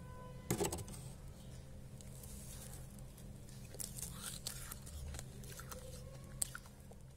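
Thick, powdery freezer frost being scraped and crunched, in scattered short crackly scrapes with a louder crunch about half a second in and a sharp click near the end, over a low steady hum.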